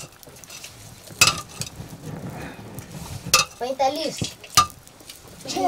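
A ladle stirring food in a cooking pot over a wood fire, with three sharp knocks of the ladle against the pot, about a second in, past three seconds in, and near the end, over a low steady bubbling hiss.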